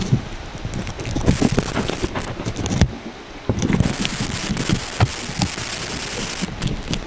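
Aluminum foil crinkling and crackling in irregular sharp bursts as it is peeled off the microphone cable, handled right against the shotgun mic. It eases off briefly about three seconds in, then picks up again.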